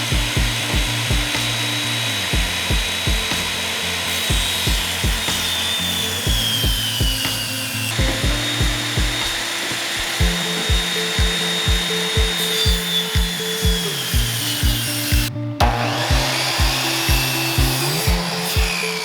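Background music with a steady beat over a power saw cutting wood. The saw's high motor whine drops in pitch each time the blade bites into the wood, several times.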